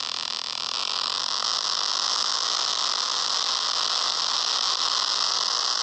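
Loud, steady hiss of static from an emergency alert (EAS) alarm recording, with a faint wavering whistle underneath.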